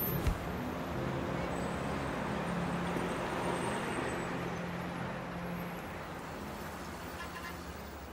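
A steady wash of traffic-like ambient noise, fading slowly over the last few seconds.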